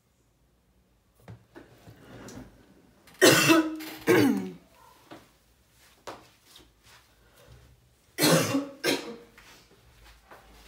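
A person coughing: two pairs of short, harsh coughs, the second pair about five seconds after the first.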